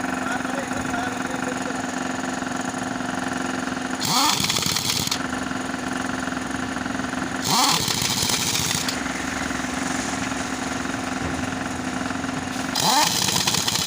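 An engine idling steadily, with three short bursts, each about a second long, of a rising whir and hiss.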